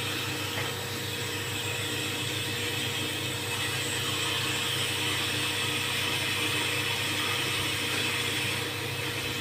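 Kitchen tap running steadily into a sink while dishes are rinsed.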